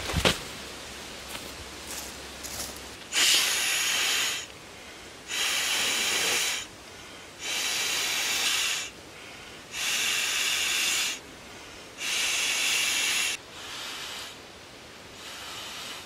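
A brief rustle as the sleeping pad is shaken out, then a man blowing up an inflatable sleeping pad by mouth through its valve: five long breaths into the pad about every two seconds, followed by two weaker ones near the end.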